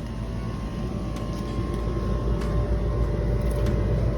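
Steady low mechanical rumble with a faint steady hum above it.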